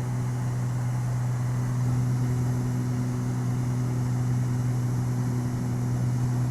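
Twin-engine Beechcraft G58 Baron in cruise, heard from the cockpit: its two Continental IO-550 six-cylinder engines and propellers make a steady low drone that does not change.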